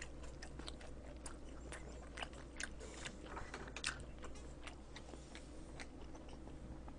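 A person chewing a mouthful of food close to the microphone: faint, irregular wet mouth clicks and smacks.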